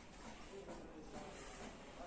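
Quiet background hiss with a few faint, indistinct sounds and no clear event: near-silent room tone.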